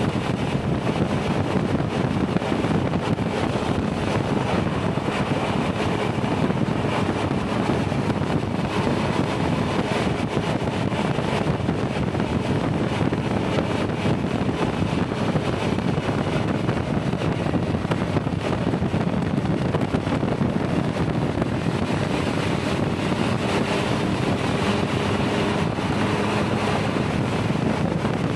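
Triumph Tiger 1200's three-cylinder engine running steadily at highway cruising speed, under a constant rush of wind noise on the microphone.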